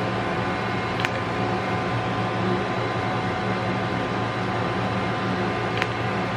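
Handheld IPL hair-removal device running with a steady fan hum, giving two sharp clicks, about a second in and near the end, as it fires its light pulses on the skin.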